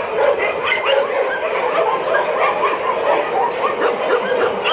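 A shelter full of dogs barking and yelping at once, many voices overlapping without a break, the pack stirred up by someone arriving.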